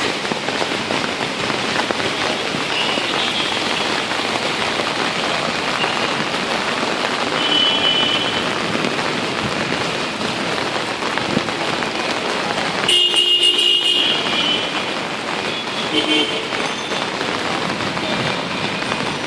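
Steady heavy rain, an even hiss that does not let up. About thirteen seconds in, a louder sound with a steady tone sounds for about a second, and faint short high tones come and go.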